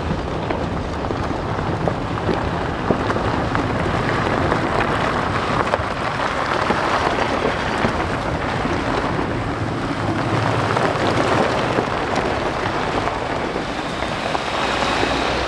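Off-road vehicles driving slowly along a dirt track: tyres crunching over gravel and dirt with engine noise, a steady crackling rumble that swells a little midway.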